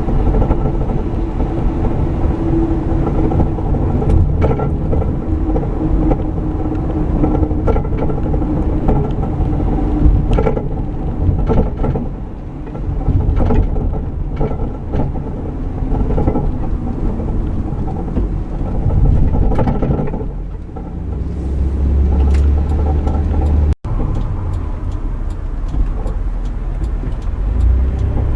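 Van driving, heard from inside its rear: steady road and driveline rumble with repeated irregular clunks from the rear suspension. This is the clunking of a broken track bar, which lets the rear axle shift against the body.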